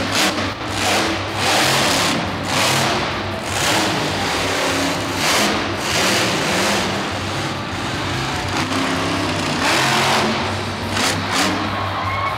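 Grave Digger monster truck's supercharged V8 revving hard, its pitch and loudness rising and falling in repeated surges as it is throttled through jumps and wheelies.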